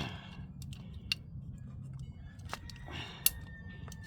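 Glued-on PVC pipe fitting being cut off: scattered sharp clicks and a short scrape of the cutting tool on the plastic.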